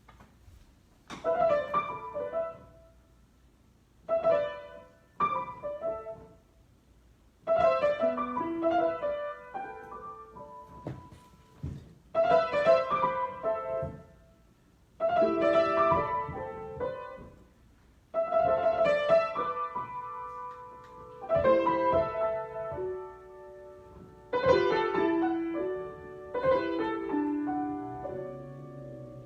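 Solo piano improvisation: chords struck in short phrases that ring out, with pauses between them at first, the phrases growing longer and more continuous later.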